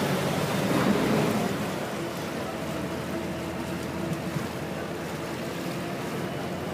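Vaporetto water bus motoring along a canal: a steady engine hum with water washing along the hull.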